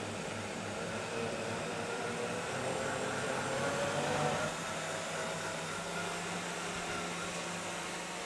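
High-powered countertop blender motor running steadily while blending thick cashew cream, with a tamper pressed through the lid to keep the thick mix turning. It gets a little louder about four seconds in, then eases slightly.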